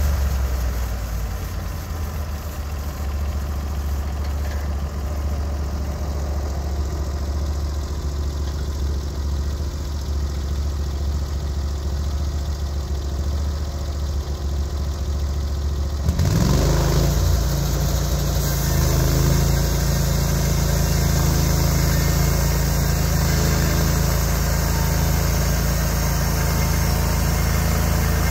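Gas engine of a Norwood HD36v2 portable bandsaw mill running steadily at lower speed, then revving up about 16 seconds in and running louder as the band blade cuts through elm.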